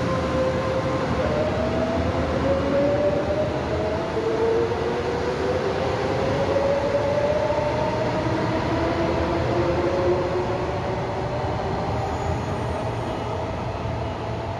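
A Taiwan Railway EMU500 electric multiple unit pulling away and accelerating, its GTO-VVVF inverter and traction motors whining in several tones that climb in pitch, jumping up about a second in and again around four seconds in, over the rumble of the wheels. The sound eases off slightly near the end as the train draws away.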